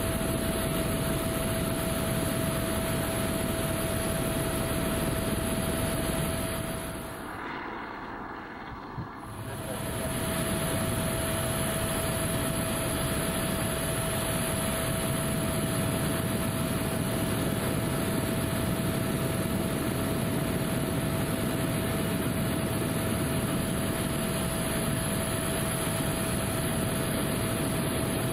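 Eurocopter AS350 A-Star helicopter in flight, heard from aboard: a steady rushing engine and rotor noise with a steady mid-pitched whine. About seven seconds in, the noise drops and goes muffled for about three seconds, with a single click, then comes back at full level.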